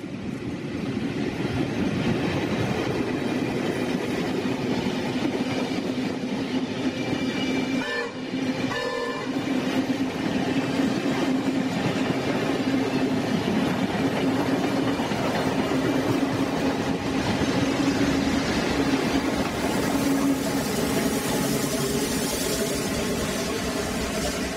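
NSW 47 class diesel-electric locomotive 4703 passing at speed with a train of heritage passenger carriages: a steady engine drone, a short horn sounding about eight seconds in, and wheels clattering on the rails as the carriages go by.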